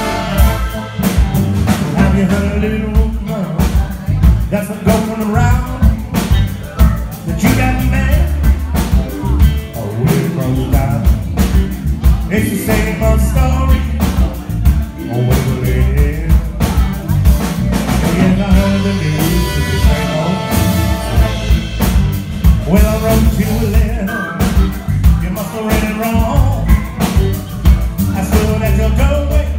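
A live band playing a rock and blues groove, with saxophones, keyboard, electric guitar and a drum kit.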